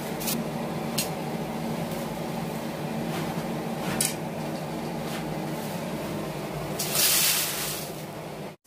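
Dry red chillies handled with a steel plate: a few light clicks of the plate, then a rush of dried chillies sliding into an aluminium kadhai about seven seconds in, over a steady low hum.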